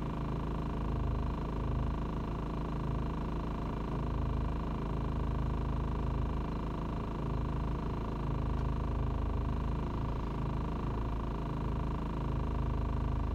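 Steady low hum inside a van's cab, with the engine idling.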